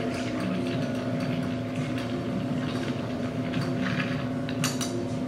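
Ice being stirred with a bar spoon in a mixing glass: light, continual clinking of ice and spoon against the glass, with a few sharper clinks near the end. Under it runs a steady background hum.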